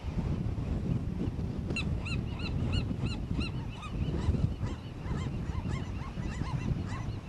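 A flock of birds calling, many short rising-and-falling calls overlapping and repeated several times a second, over a steady low rumble.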